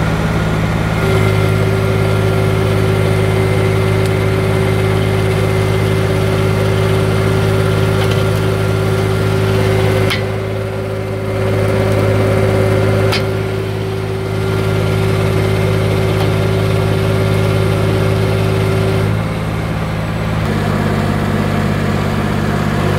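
Tractor engine running steadily while its hydraulic skidding winch reels in the wire rope, hauling a log in. A steady high whine sits over the engine from about a second in until a few seconds before the end, with two sharp clicks around the middle.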